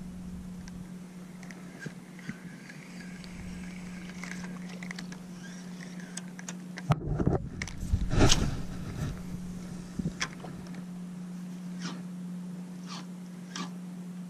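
Handling and casting of a spinning rod and reel close to the camera, with scattered sharp clicks and a loud burst of knocks and rustle about seven to eight seconds in as the rod is swung. A steady low hum runs underneath.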